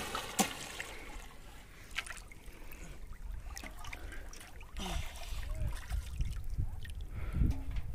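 River water sloshing and trickling around a person wading chest-deep, with water dribbling off a plastic bottle trap lifted from the water. A sharp knock about half a second in, and a smaller one about two seconds in.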